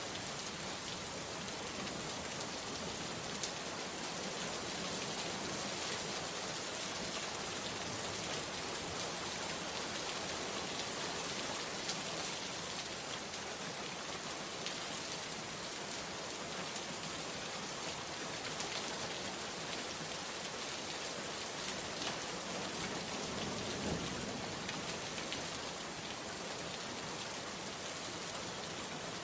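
Steady rain falling, with individual drops ticking sharply now and then.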